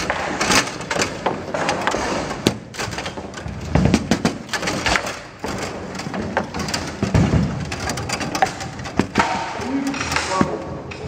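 Table football in play: the ball clacks off the figures and the table's walls, and the rods rattle and knock as they are slid and spun. Two heavier thuds come about four and seven seconds in.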